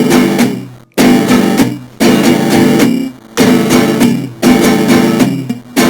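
Instrumental music: guitar chords plucked about once a second, each ringing out and fading before the next.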